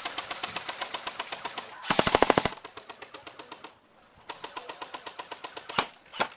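Airsoft guns firing on full auto in rapid strings of about ten shots a second. A louder, closer burst comes about two seconds in, there is a short break near the four-second mark, and then the firing picks up again.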